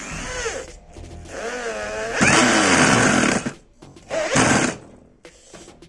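iBELL 650 W electric drill running, its motor whine rising and falling in pitch as the trigger is worked. It grows loud as the bit cuts into a clamped MDF board, from about two to three and a half seconds in, with a second short burst near the end.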